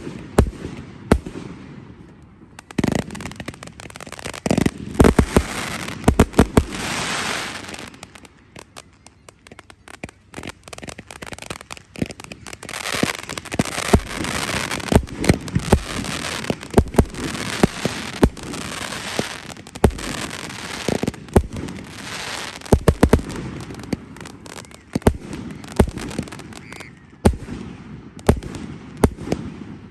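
Fireworks display: a rapid, irregular run of bangs from shells bursting overhead, with stretches of hissing crackle between them. The firing eases for a few seconds about eight seconds in, then builds again.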